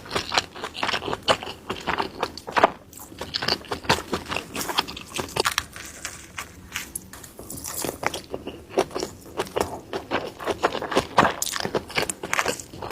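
Close-miked mukbang eating: a rapid, irregular run of crunchy bites and chewing, with wet mouth clicks between.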